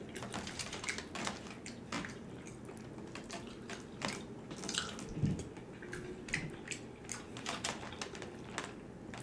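Close-miked chewing: irregular soft, wet mouth clicks and smacks, with a low thud about five seconds in.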